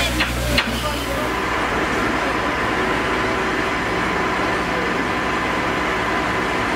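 A hose jet hissing, with two short knocks in the first second. From just over a second in, a steady engine hum with a faint held whine takes over.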